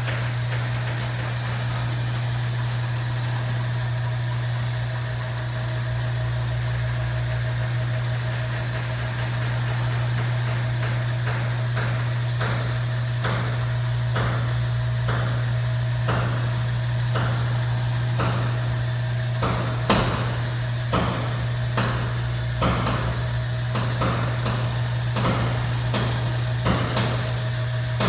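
Bifold hangar door closing: its lift motor runs with a steady hum while the door lowers. From about halfway on, metallic clicks and knocks come about once or twice a second, the loudest about twenty seconds in.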